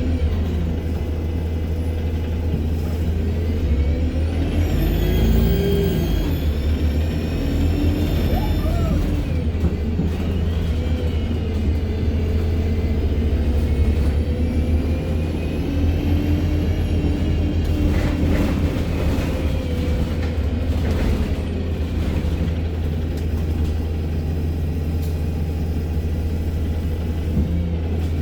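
ADL Enviro200 MMC single-deck bus with a Voith automatic gearbox running under way: a steady low diesel engine rumble with a high turbo whine that rises and falls twice as the bus pulls away and eases off.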